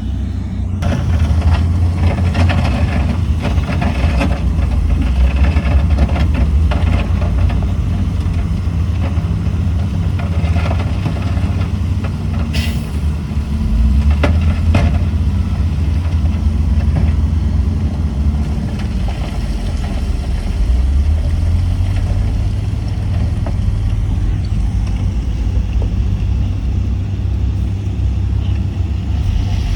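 Heavy diesel earthmoving machinery running steadily at a worksite, with a few sharp metallic knocks about halfway through.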